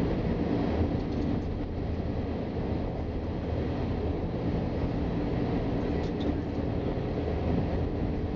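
Steady running noise of a moving Ferrovie Nord commuter train heard from inside: a low rumble of wheels on the rails at speed.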